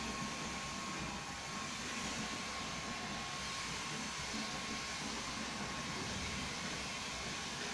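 Steady rushing background noise with a faint steady high tone through it, unchanging throughout.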